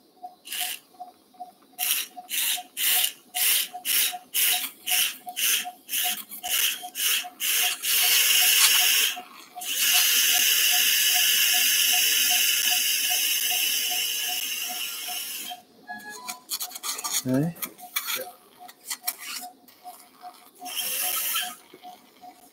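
Powered surgical pin driver driving a pin into the femur's lateral condyle: a string of short trigger pulses about twice a second, then a continuous run of several seconds, then more short pulses near the end. Under it an anaesthetic monitor's pulse tone beeps evenly, about two beeps a second.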